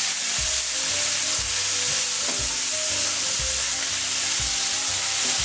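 Rolled steak braciole sizzling steadily as they pan-fry in garlic-infused olive oil in a stainless steel skillet, with a few light clicks and taps of tongs turning them.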